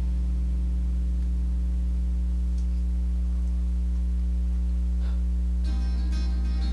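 Steady low electrical hum in a gap between songs, with a faint tick or two. Guitar music starts near the end.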